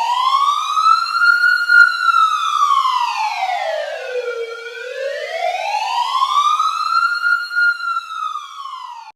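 Emergency alert siren wailing, its pitch sliding slowly up and down: it peaks twice about six seconds apart, dips low in between, and cuts off suddenly while falling.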